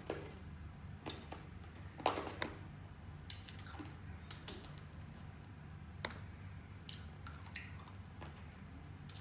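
Scattered small clicks and crinkles, a few sharper ones about a second, two seconds and six seconds in, over a steady low hum.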